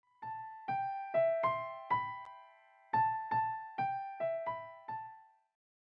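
Background music: a slow melody of single piano notes, each struck and left to ring, in two short phrases with a brief pause between them, dying away near the end.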